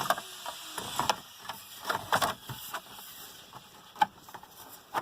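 Plastic dashboard trim panels being handled and pushed back into place: a scattered series of plastic clicks and knocks, with one sharp click about four seconds in.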